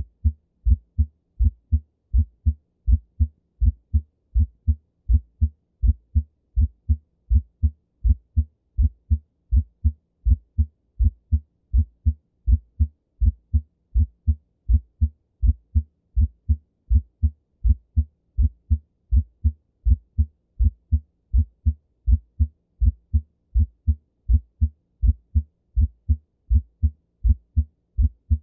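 Heart sounds with a split first heart sound (S1): a steady, regular rhythm of low thuds. A split S1 is usually a normal finding, but can be heard with a right bundle branch block.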